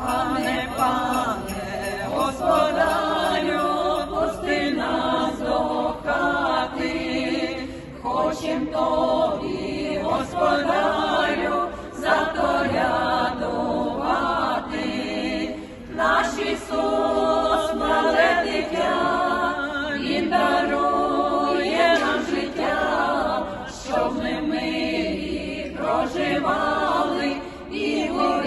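Small group of singers performing a Christmas carol (koliadka) unaccompanied, in sung phrases with short breaks about every four seconds.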